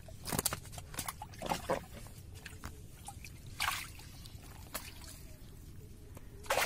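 Water sloshing and dripping as a monofilament gill net is pulled up out of the water into a wooden boat, with several short splashes.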